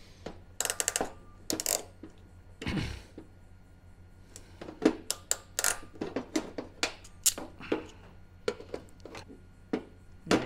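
Irregular clicks, taps and short rustles of hand tools and wiring being handled while a crimped wire joint is reworked, with a brief thump about three seconds in.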